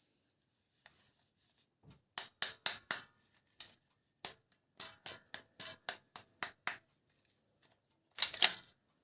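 Plastic toy parts being handled: a run of sharp clicks and taps, several a second, from about two seconds in, then two louder clicks near the end.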